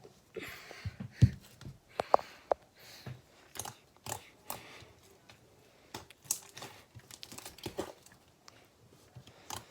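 Slime being squeezed, poked and stretched by hand, making scattered small clicks, pops and short crackly bursts.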